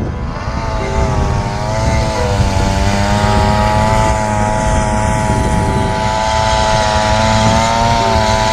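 Small motor running steadily at high speed, its whine wavering slightly in pitch, over a low rumble.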